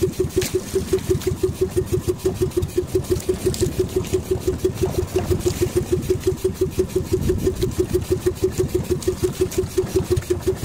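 Outrigger fishing boat's engine running steadily at idle, an even chugging of about five beats a second.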